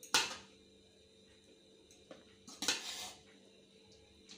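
A metal spoon scraping and clinking against the side of a metal cooking pot as rice is stirred. There are two strokes: a short, loud one just after the start and a longer one about two and a half seconds in.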